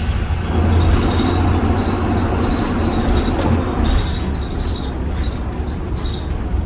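2020 Blue Bird Vision school bus under way, heard from inside: a steady low engine and road rumble with occasional rattles and clicks from the body.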